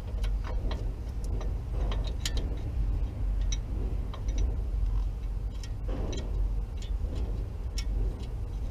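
Scattered light metallic clicks and taps from hands fitting the fan and its bolts behind the radiator shroud of an engine bay, over a steady low rumble.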